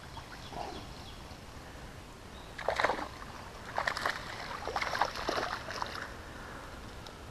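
A small hooked fish splashing at the surface in shallow water as it is reeled in to the bank, in a few short, irregular bursts starting about three seconds in.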